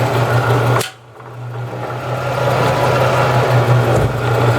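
Jet 414500 14-inch band saw's 1 hp, 115 V motor and gearbox running with no blade fitted: a steady hum with a strong low tone. The level drops sharply about a second in and then builds back up. The gearbox is running dry, which the owner reckons needs a little gear oil.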